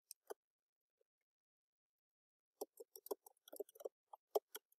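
Faint typing on a computer keyboard: a single click just after the start, then a quick run of keystrokes starting about two and a half seconds in and lasting about two seconds.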